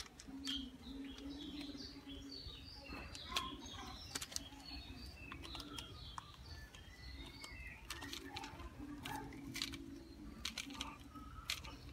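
Small birds chirping in short, scattered calls throughout, with sharp clicks and scrapes from a screwdriver working the terminal screw of a miniature circuit breaker.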